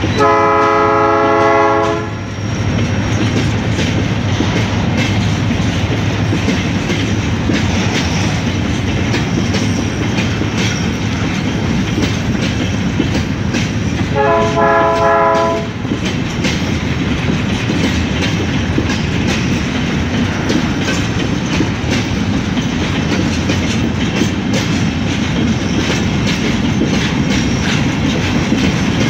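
Long freight train of covered grain wagons rolling past with steady wheel and rail noise and clickety-clack over the joints. The leading EMD GT-22CW locomotive's horn sounds two chords: one of about two seconds at the start and a shorter one about fourteen seconds in.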